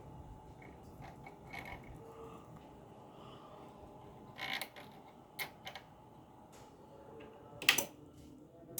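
A few scattered sharp clicks and knocks over a faint steady background, the loudest near the end.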